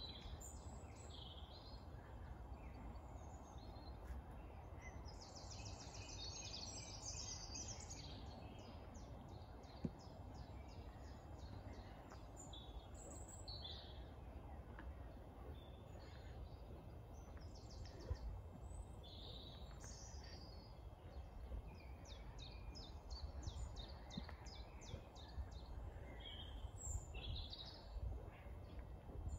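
Songbirds singing: a string of short songs and quick trills, one after another, over a steady low rumble.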